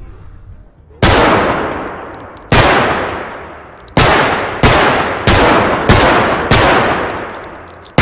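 M1911 pistol firing seven shots, each followed by a long fading echo: two slower shots about a second and a half apart, then five quicker ones in a row.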